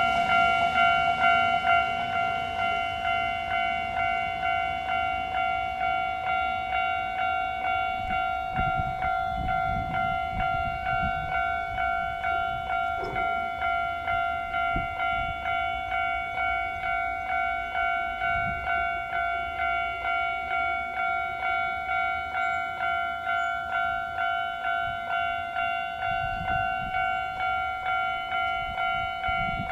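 Railway level-crossing warning bell ringing steadily, about two strikes a second, with the low rumble of a train underneath.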